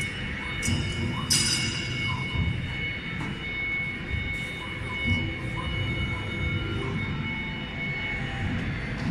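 CNC router running, with a steady high-pitched whine over a low, irregular clattering rumble. There is a sharp metallic clank about a second in, and the whine fades out near the end.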